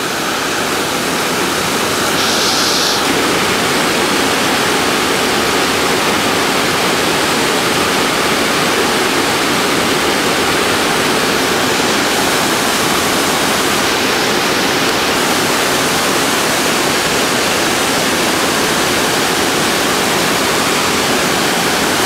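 Steady rushing of a mountain stream pouring over a low, stepped rocky cascade into a pool, heard close by.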